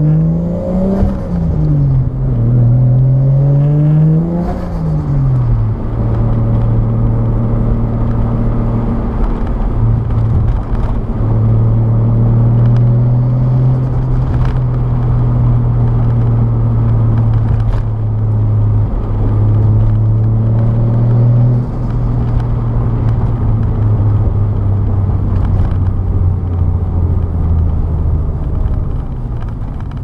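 Turbocharged Toyota 1JZ straight-six in a Nissan S14 240SX, heard from inside the cabin. It pulls up through two gears in the first five seconds, the pitch climbing and then dropping at each shift with a brief hiss of turbo flutter. It then cruises at steady revs, eases to lower revs after about twenty seconds and slows near the end.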